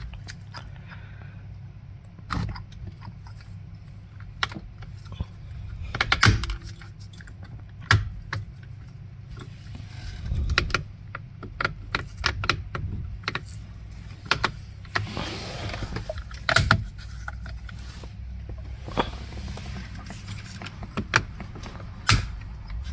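Scattered clicks, knocks and light rattles of plastic parts being handled and snapped into place as a new clock spring (spiral cable) is fitted to a steering column, over a steady low hum.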